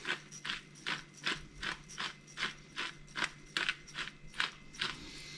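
Hand-twisted pepper mill grinding peppercorns: a steady series of short grinding clicks, about two or three a second.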